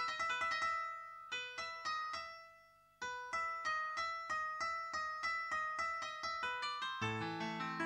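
Background piano music: a steady run of high struck notes that dies away between about one and three seconds in, then resumes at about three notes a second, with lower notes joining near the end.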